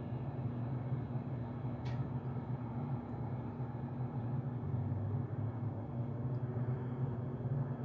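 Steady, low droning hum of distant aircraft overhead, with one short click about two seconds in.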